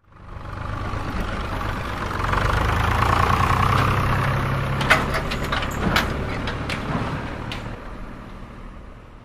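Homemade toy tractor's small motor and drive running as it rolls along, swelling to its loudest a few seconds in and fading near the end. A few sharp clicks come partway through.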